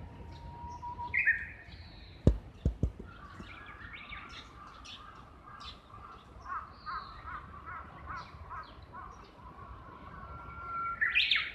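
Japanese bush warbler singing its "hoo-hokekyo" song: a long steady whistle followed by a quick high flourish, at the start and again near the end, with a run of quick repeated notes in between. Other small birds chirp faintly higher up, and a few sharp knocks come about two seconds in.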